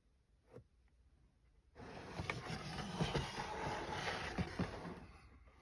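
A white plastic tray holding a comic cover in solvent is slid and turned around on a cutting mat: a rough scraping and sliding that starts about two seconds in and lasts about three seconds, with a few small knocks in it.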